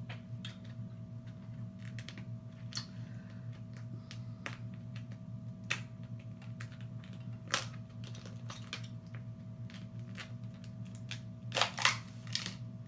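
Eating a blue crab: scattered sharp clicks and cracks of shell and mouth sounds, with a louder cluster of cracks about a second before the end. A steady low hum runs underneath.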